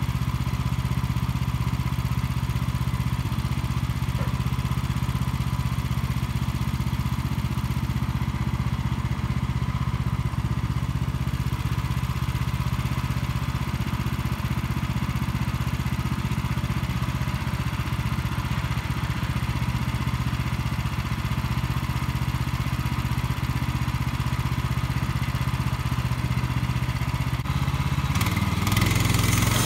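Gas engine of a WoodMaxx portable sawmill running steadily at a constant speed. Near the end it gets louder and a harsher hiss joins it.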